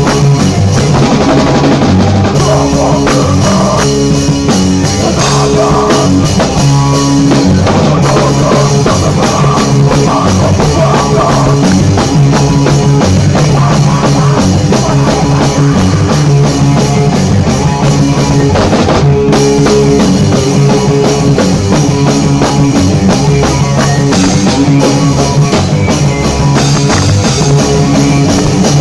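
Live rock band rehearsing a grunge noise song: electric bass and drum kit playing together, loud and continuous.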